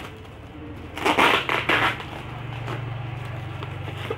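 Packing tape being peeled off a black plastic-bag parcel wrapping, the plastic crinkling and crackling, loudest in a cluster of tearing bursts about a second in. A steady low hum runs underneath from about a second and a half in.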